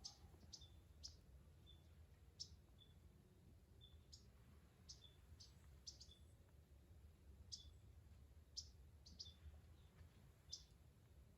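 Near silence with faint, high bird chirps: short quick down-slurred notes repeated irregularly, some followed by a brief lower peep, over a low rumble.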